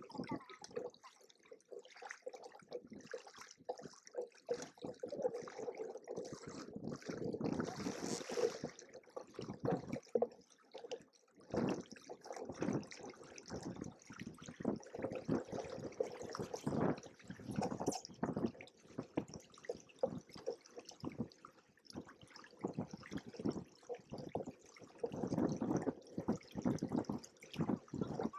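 Water splashing and gurgling irregularly against the hulls of a Hobie Cat 16 catamaran.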